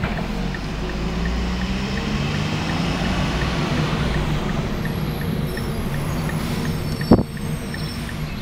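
Diesel engine of a rear-loading garbage truck pulling away and running along the street, its pitch rising as it accelerates. A short, sharp burst of the air brakes comes about seven seconds in as the truck comes to a stop.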